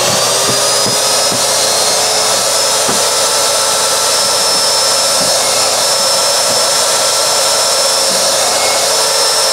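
Electric miter saw running loud and steady at full speed with a high whine, its spinning blade chopping slices off a zucchini with a few short knocks in the first five seconds.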